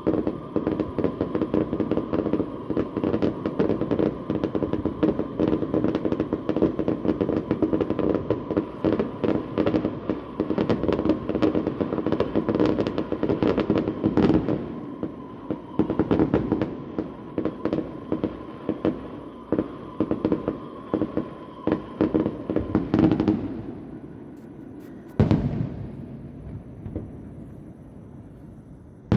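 Fireworks display heard from about a kilometre away: a dense, rapid barrage of bangs and crackles that thins out about 23 seconds in, followed by a single louder bang a couple of seconds later and another near the end.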